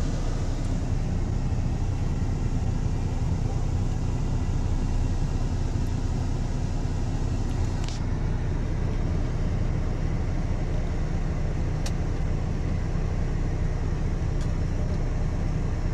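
MAN TGS truck's diesel engine idling steadily at about 750 rpm, heard inside the cab, with the air-conditioning blower running on setting 4.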